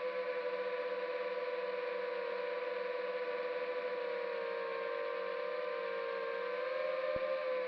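Brushless motors and 5-inch three-blade propellers of a 250-size FPV racing quadcopter whining steadily in flight. The pitch drops slightly about four seconds in and climbs back about six seconds in as the throttle eases off and comes back.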